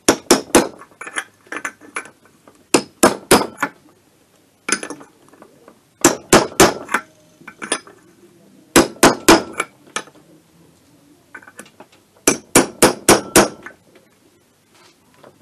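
Hammer tapping on a metal tube used as a driver, seating a part on a shaft in a Minarelli AM6 engine's open crankcase. The sharp metallic taps come in quick bursts of four or five, with short pauses between bursts.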